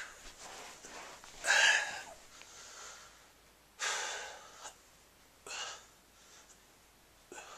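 A man breathing hard, out of breath from push-ups and sit-ups: four heavy, breathy exhalations about every one and a half to two seconds, the last ones fainter.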